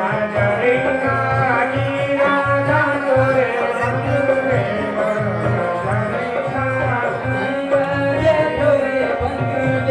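Indian song with a steady drum beat under a wavering melody line that sounds like singing.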